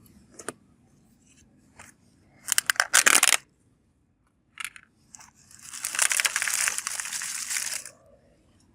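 Plastic candy packaging crinkling and tearing: a few sharp clicks, a short crackly burst about halfway through, then a longer stretch of crinkling near the end.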